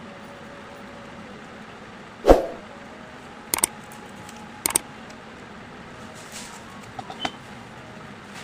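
Scissors cutting craft paper: a loud thump a couple of seconds in, then two sharp double snips about a second apart, and a few lighter clicks near the end, over a steady background hum.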